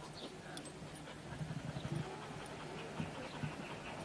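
Bark Off ultrasonic bark-deterrent unit emitting its steady, very high-pitched tone on the higher-frequency setting.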